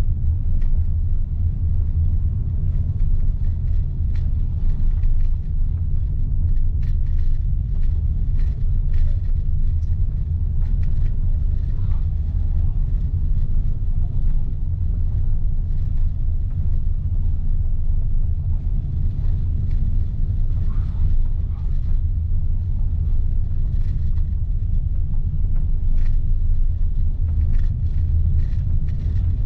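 Steady low rumble of a car driving along town streets, heard from inside the cabin: engine and tyre noise, with faint scattered clicks.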